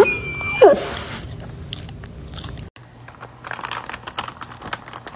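A short, rising, voice-like call from a shaggy white dog in the first second. After a brief break, a paper takeout bag crinkles and rustles as a hand handles it.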